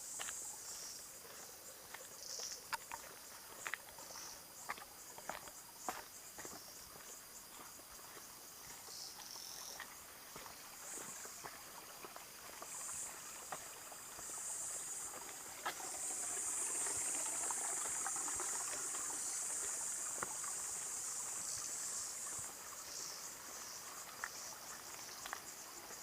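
Forest insects calling in high-pitched patches, with one louder stretch lasting several seconds in the middle. Scattered light ticks and knocks sound throughout.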